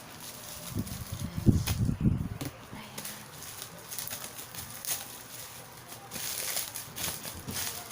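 Plastic packaging and bubble wrap being pulled apart and handled, rustling and crackling, with a burst of heavy thumps and bumps about a second to two and a half seconds in.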